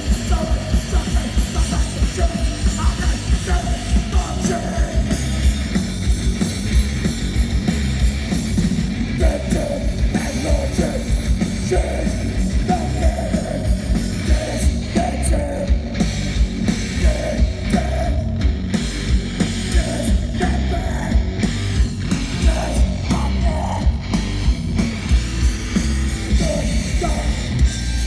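A hardcore punk band playing live, loud and fast: distorted guitars, pounding drums and shouted vocals.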